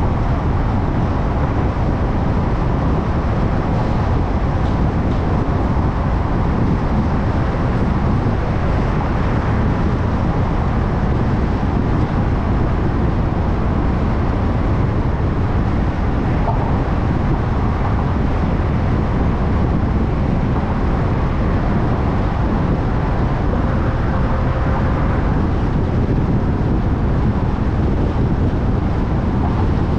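Steady road noise of a car being driven through city traffic: a constant low rumble of tyres and engine.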